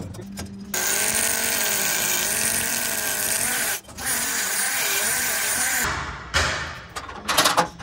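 Hand-held electric drill with a driver bit spinning spoke nipples tight on a motorcycle spoke wheel rim. It runs in two stretches of about three and two seconds, its motor pitch wavering as the nipples take up. A few sharp knocks follow near the end.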